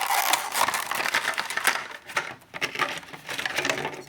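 Packaging being handled, crinkling and crackling in a dense, irregular run of small rustles.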